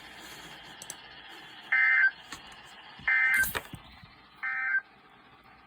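Emergency Alert System SAME data tones: three short identical bursts of warbling digital tone about a second apart, the end-of-message code that closes a weather radio warning.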